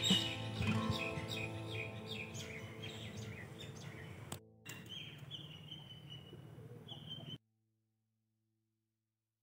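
Rapid run of short, falling bird chirps over a sustained musical drone, fading steadily and then cutting to silence a little past seven seconds in.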